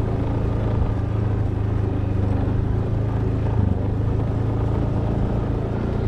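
A motor vehicle engine running steadily at a constant pace, with a low hum and road noise.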